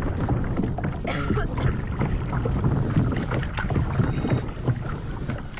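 Kayak paddle strokes splashing and water sloshing against the hull, with wind buffeting the microphone.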